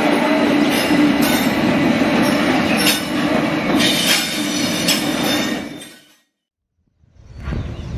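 Diesel locomotive running past on a yard track: a steady engine note under wheel noise, with thin high squeals from the wheels and repeated clicks over the rail joints. It fades out about six seconds in, and after a brief silence a different low rumbling noise fades in near the end.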